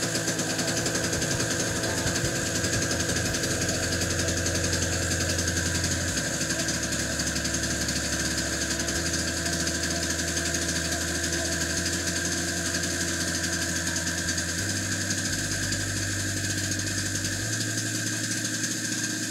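Norton PGI 1100 inverter generator's small two-stroke gasoline engine running steadily.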